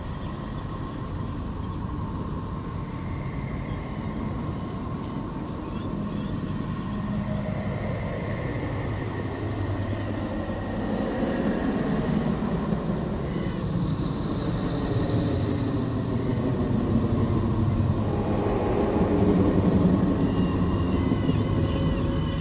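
Voyager space-probe recording of Neptune's electromagnetic plasma-wave emissions, converted into audible sound: a dense, steady low rumble with faint tones sliding slowly up and down above it. It swells in loudness through the second half, and short repeated chirps come in near the end.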